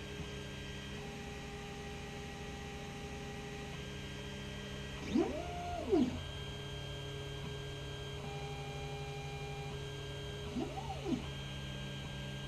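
Creality CR-10S 3D printer's stepper motors whining as the print head moves: steady tones that jump to new pitches between moves, with two quick rising-then-falling glides, about five and eleven seconds in, as the head speeds up and slows down on longer travels. Under it runs a low steady hum.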